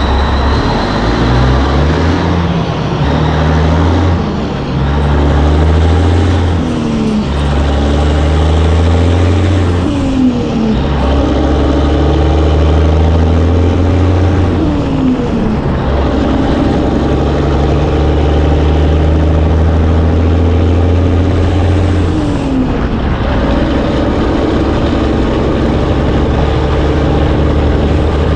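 A semi truck's diesel engine pulling through the gears. Its pitch climbs in each gear and drops at each of several upshifts, and the later gears are held longer.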